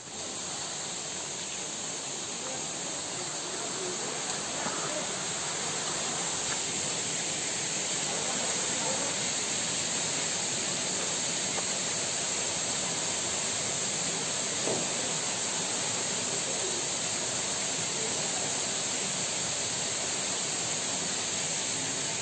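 Rushing water of a rocky forest stream: a steady hiss that grows louder over the first several seconds and then holds, with a high, even drone on top.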